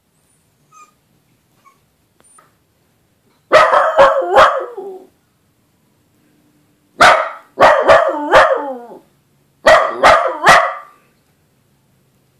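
Dachshund giving barking howls: three bursts of three or four sharp barks, each burst trailing off in a drawn-out, falling note.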